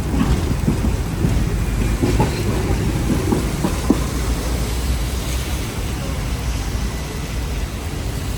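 Hong Kong double-decker tram running along its rails with a steady low rumble. Loose rattles and knocks come through the first few seconds, with one sharp clack about four seconds in, and the rumble then evens out.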